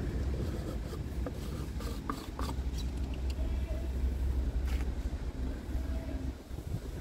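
Low, fluttering rumble of wind on the microphone, with a few light clicks from a plastic reservoir cap being handled and screwed on.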